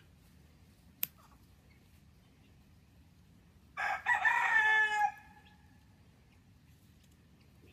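A rooster crows once, a loud call of a little over a second starting about four seconds in. A single sharp click sounds about a second in.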